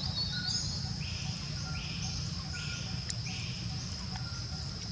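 Forest insects calling: a high, continuous buzzing drone with a second call of short hissing pulses repeating about every three quarters of a second, over a steady low rumble.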